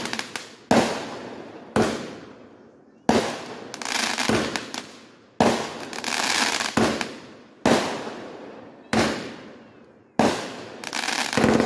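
Consumer aerial fireworks going off: about seven sharp bangs one to two seconds apart, each fading out in a noisy, crackling tail.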